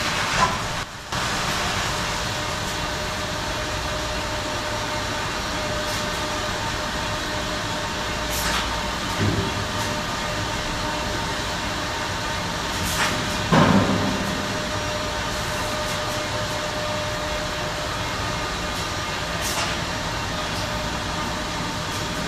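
Steady running noise of biscuit production-line machinery, with a constant whine. A few brief clunks come through, the loudest about halfway through.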